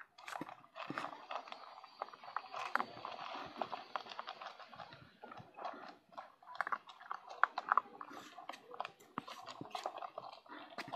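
Dogs crunching dry kibble from a plastic bowl: a dense, irregular run of crunches and sharp clicks.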